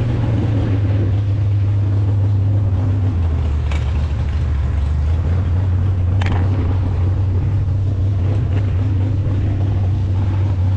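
Steady low rumble of an engine idling, with two brief sharp clicks about four and six seconds in.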